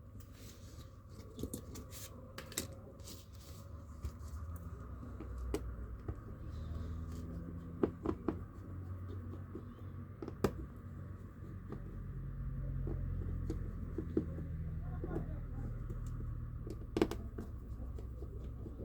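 Small tools and plastic phone parts being handled during a smartphone teardown: scattered sharp clicks and light scrapes over a steady low rumble.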